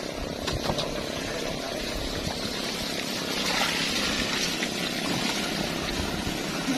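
Water gushing from a garden hose and splashing onto the muddy ground, a steady rushing hiss that grows louder about halfway through, with an engine running underneath.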